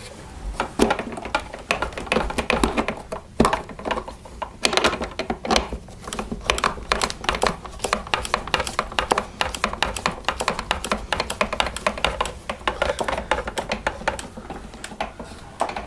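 Rapid, irregular clicking and ticking of a screwdriver driving screws back into the plastic housing of a Miele S5311 vacuum cleaner. The clicks come several a second, with short pauses about a second and about four seconds in.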